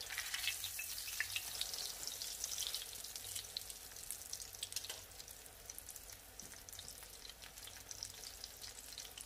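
Breaded chicken cutlet shallow-frying in grapeseed oil in a stainless steel skillet: a steady sizzle with many small crackles. It is loudest just after the cutlet is turned over, then eases.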